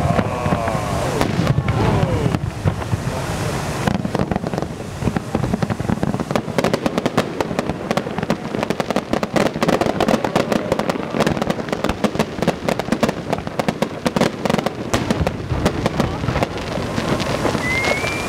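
Fireworks display: aerial shells bursting in a quick run of bangs, with dense crackling thickest in the middle of the stretch.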